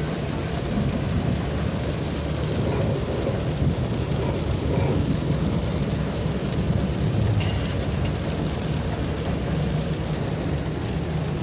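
Rain on a moving car and road noise heard from inside the cabin: a steady, even rush with a deep low hum underneath.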